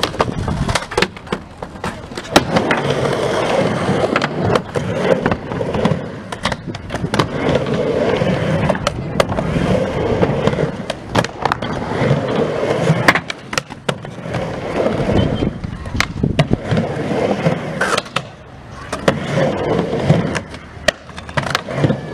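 Skateboard wheels rolling back and forth across a mini halfpipe ramp. The rumble swells and fades with each pass, broken by many sharp clacks of the board striking the ramp.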